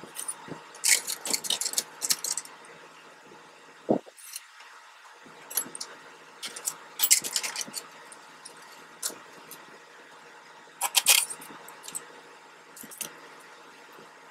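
Light metallic jingling and clinking in several short clusters a few seconds apart, with one dull knock about four seconds in.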